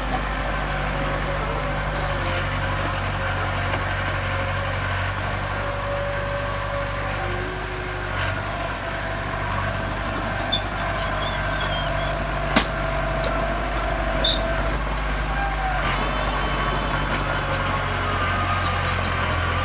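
Heavy diesel engine running steadily at low speed, with a light rapid clatter joining near the end.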